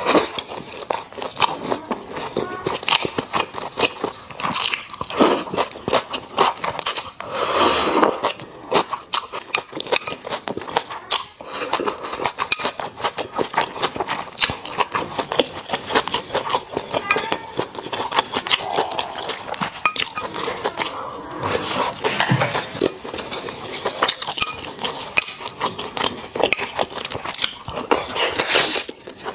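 Close-miked chewing of braised pork belly and rice: a dense run of wet mouth clicks and lip smacks, with a few longer sucking smears.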